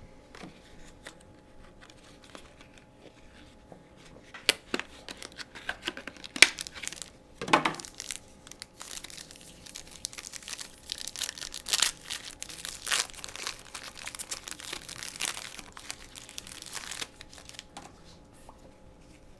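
Trading-card pack wrapper being torn open and crinkled by hand: sharp tearing and crackling starts about four seconds in and goes on in irregular bursts, dying down near the end.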